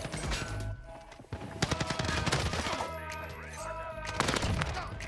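Rapid, repeated gunfire with music and voices mixed in. It dips briefly about a second in, then returns louder.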